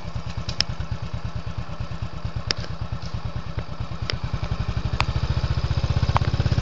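Motorcycle engine running with a steady, fast putter. It speeds up and gets louder over the last couple of seconds as the bike accelerates. A few sharp clicks are scattered through it.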